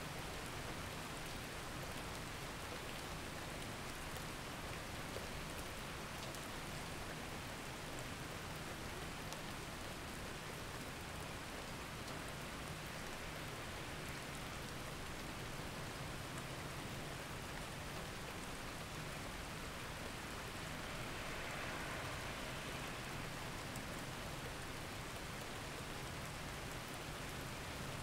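Steady, continuous recorded rainfall: an even hiss of rain with fine drop patter, swelling slightly about three-quarters of the way through. It serves as the masking sound bed of a subliminal track.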